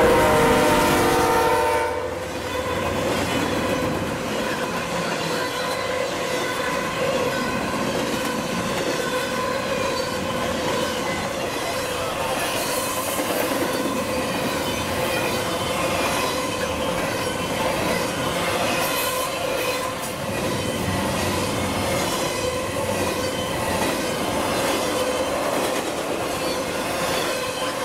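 A Norfolk Southern freight locomotive's horn sounds a multi-note chord that cuts off about two seconds in. The train's cars then roll past at speed, a steady rumble of wheels on rail with a continuous high squeal from the wheels.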